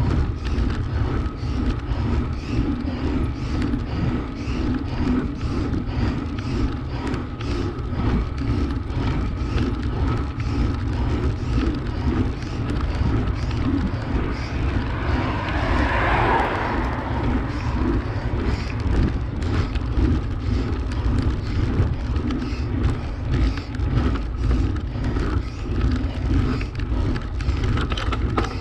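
Road bike riding over rough, patched tarmac: tyre rumble and wind buffeting on a handlebar-mounted camera, with frequent small knocks and rattles from bumps in the surface. A brief swell of noise comes about halfway through.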